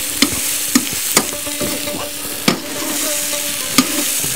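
Meat, onion and freshly added carrots sizzling in a hot kazan over an open fire while being stirred, the spatula knocking against the pot about five times.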